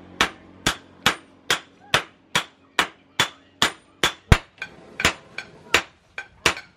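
A hand hammer strikes a red-hot bearing-steel knife blade on a small steel anvil while the blade is forged, giving a steady run of sharp ringing blows about two a second. One blow about four seconds in is heavier than the rest.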